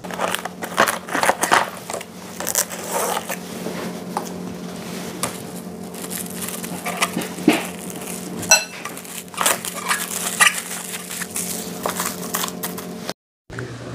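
Plastic freezer bags crinkling and rustling as beef steaks are packed, with irregular clicks and light clatter of kitchenware, over a low steady hum. The sound cuts out briefly near the end.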